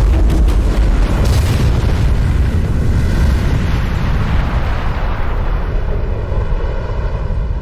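Building explosion sound effect: a loud, deep rumble with crackling in the first second or so, slowly dying away as the higher hiss fades out first.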